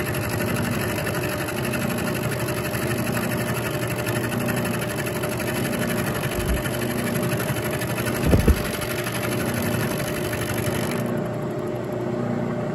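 Bridgeport Series 1 milling machine's roughing end mill climb milling, a steady dense cutting noise. Two brief low thumps come about six and a half and eight seconds in. About eleven seconds in the cutting noise drops away as the cutter leaves the work, and the spindle runs on.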